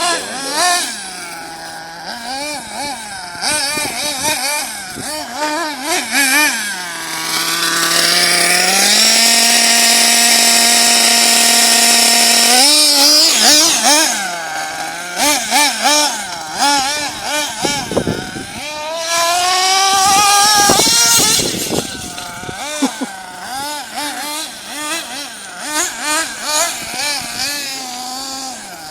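Small nitro engine of a GS Storm 1/8-scale RC buggy, revving up and down as the buggy is driven. It holds a long steady full-throttle run about a third of the way in and a shorter one about two-thirds in.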